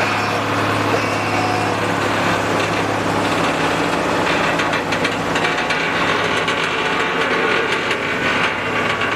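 Diesel engine of a heavy-haul cargo vehicle running steadily with a low hum. About halfway through the hum weakens and irregular crackling noise comes up over it.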